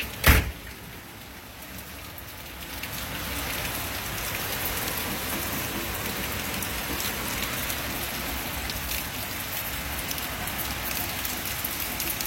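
Heavy storm rain pouring down in a steady hiss that swells louder about three seconds in. Just after the start comes a single sharp bang, the loudest sound here.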